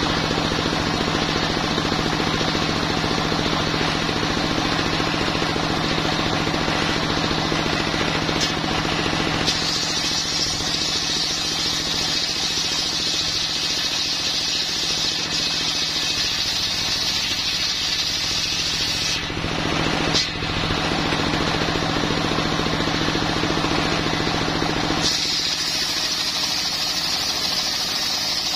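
Homemade circular sawmill bench driven by a stationary diesel engine, ripping a long timber plank: the engine runs steadily under load while the blade cuts with a harsh high whine. The whine grows stronger about ten seconds in, eases briefly a little before twenty seconds, and comes back strongly near the end.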